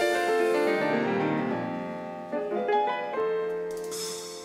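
Grand pianos holding slow chords that ring and fade away, with fresh chords struck about halfway through.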